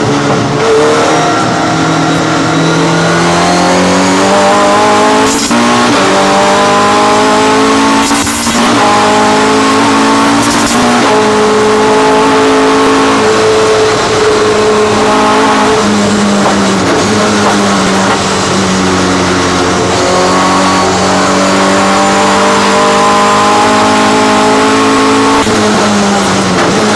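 Race car engine heard from inside the cockpit at full throttle, its pitch climbing and dropping sharply at each upshift three times in the first dozen seconds, then falling as the car slows and climbing again through the gears.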